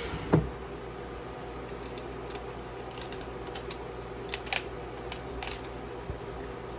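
Glass pan lid set down on a frying pan with one sharp clink about a third of a second in, then scattered light ticks and pops over a steady low hum.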